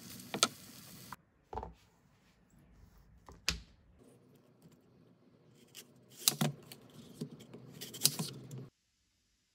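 Food sizzling in a frying pan with a couple of utensil scrapes, stopping abruptly about a second in. Then come scattered knocks and a knife cutting into an apple on a plastic cutting board, the blade tapping the board several times near the end before the sound cuts off.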